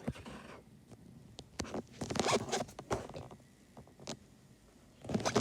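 Irregular rustling and scraping noises with a few sharp clicks, the longest and loudest rustle about two seconds in and another short burst near the end.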